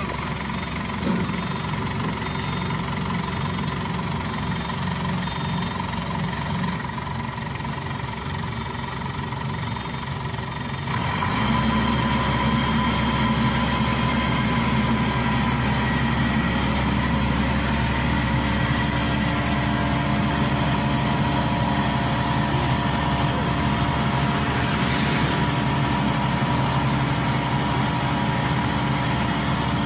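Diesel engine of a crawler rice combine harvester running steadily as the machine drives on its tracks. About eleven seconds in it becomes abruptly louder and fuller in the low end, then holds steady.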